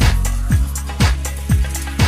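Upbeat electronic-style background music with a steady beat: a kick drum about twice a second over a bass line.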